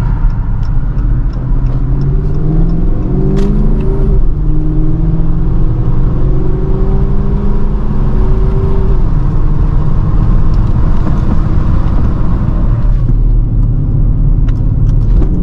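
Dodge Charger R/T's 5.7-litre Hemi V8 with its new aftermarket exhaust, heard from inside the cabin under hard acceleration. The engine note climbs, drops at a gear change about four seconds in, climbs again until another change near nine seconds, and quietens near the end.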